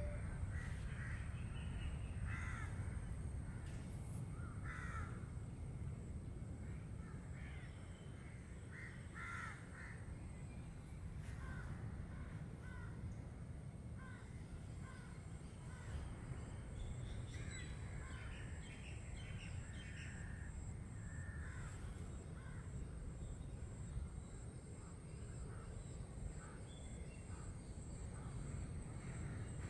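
Short bird calls scattered through, over a steady low rumble and a thin, steady high whine.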